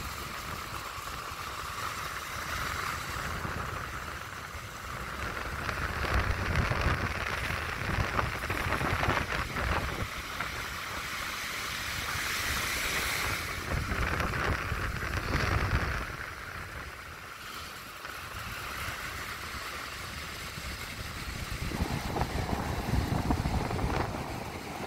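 Strong wind buffeting the microphone in gusts, over the steady wash of surf breaking on a beach.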